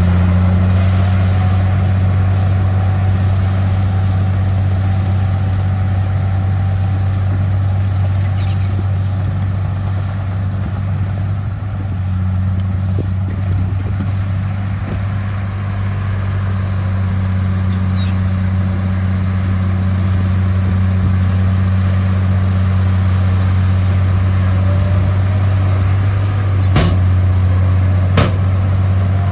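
Komatsu bulldozer's diesel engine running with a steady deep drone, easing off slightly for a few seconds midway, with two sharp metallic clanks near the end.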